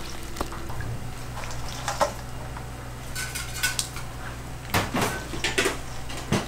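Metal cookware and utensils clinking and knocking as kitchen work goes on. The knocks are scattered and come thickest about five seconds in, over a steady low hum.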